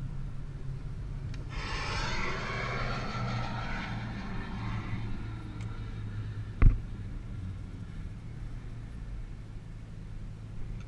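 A pair of F-22 Raptor jets passing overhead, heard from inside a Nissan GT-R: their jet noise swells about a second and a half in and falls in pitch as it fades over the next three seconds. Under it the car's engine runs low and steady. A single sharp thump about six and a half seconds in is the loudest sound.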